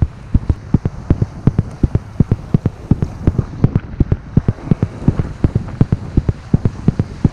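Wind-driven chop slapping against the hull of a plastic fishing kayak: a fast, irregular series of dull knocks, several a second, over a steady rush of water.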